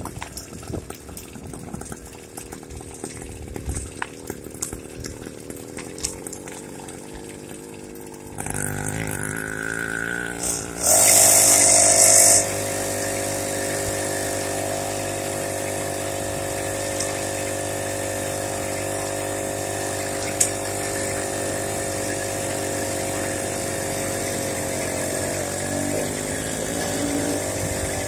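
Small motorized-bicycle engine coming on about eight seconds in, with a loud two-second burst shortly after, then running at a steady speed, wavering slightly near the end.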